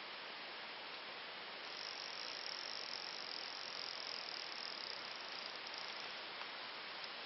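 A high, steady insect trill starts about two seconds in and breaks off near six seconds, over a steady hiss.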